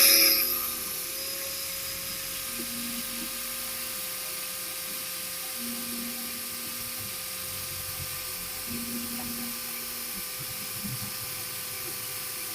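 Makita N9500N angle grinder running steadily at full speed with no load: an even, high-pitched whine over a hiss of air.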